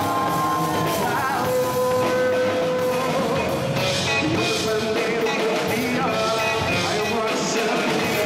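Live band playing samba swing (sambalanço): a male singer over electric guitar, drum kit and congas, the singer holding long notes near the start.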